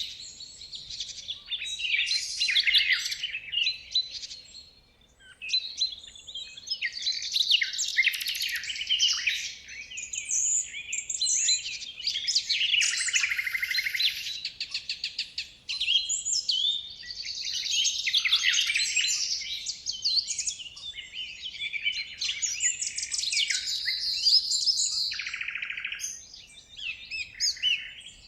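A chorus of birds chirping and calling, many short overlapping calls with brief lulls, about five seconds in and again near the end.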